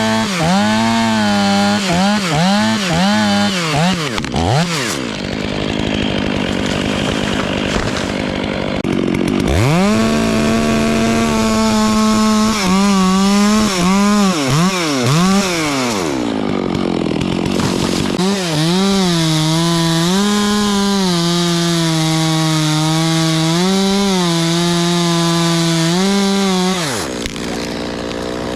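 Gas chainsaw running, revved up and down repeatedly in the first few seconds, then held at high revs with brief dips while it cuts wood. Its pitch falls away a little before the end.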